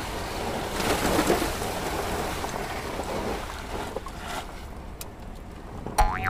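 Sand sliding off the tipped bed of a plastic toy dump truck and pouring into a muddy water pit: a rushing, splashing noise that swells about a second in and eases off about four seconds in. Near the end a sharp click, then a rising siren-like tone begins.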